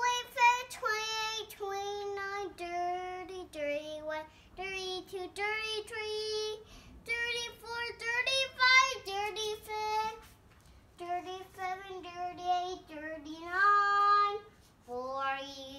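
A young girl singing a counting song, running through the numbers in short sung notes that step up and down in pitch, with a couple of brief pauses for breath.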